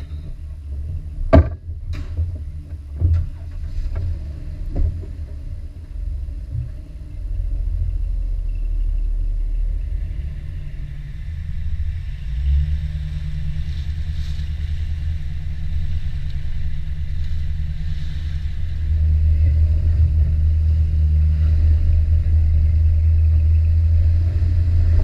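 Jeep Wrangler's engine running under load as it is pulled out of mud on a recovery strap, a steady low drone that grows louder about a third of the way in and again after about 19 seconds. A few sharp knocks come in the first five seconds.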